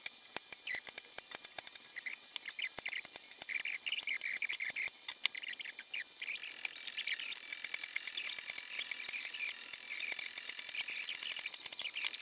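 Fast-forwarded workbench sounds: a dense run of sharp, high-pitched clicks and chirps as metal nuts and hand tools are handled while the hybrid battery pack's terminal nuts are taken off.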